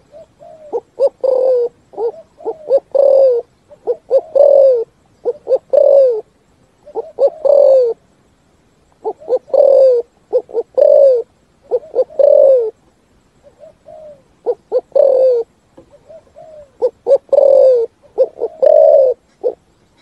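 A spotted dove cooing over and over in its full 'thúc gù' song, the kind used to call in wild doves. Each phrase is a few short, clipped coos and then a longer coo that falls in pitch, repeated roughly every second or two with a couple of longer pauses.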